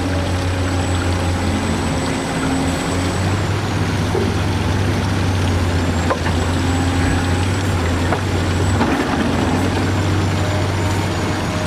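Electric motors of a radio-controlled model construction machine running: a steady low hum with a high whine that dips and rises, and a few sharp clicks.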